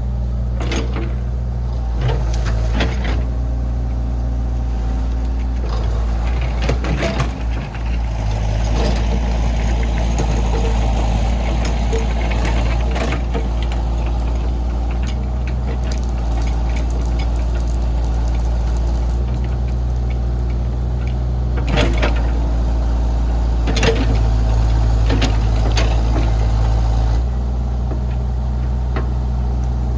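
Diesel engine of working farm machinery running steadily at a constant speed, with occasional sharp metal clanks and knocks.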